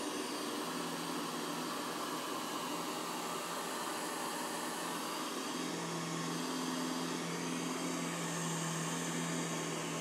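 Ecovacs Deebot Ozmo T8 AIVI robot vacuum running, a steady suction whir with a low motor hum. The hum changes slightly about halfway through.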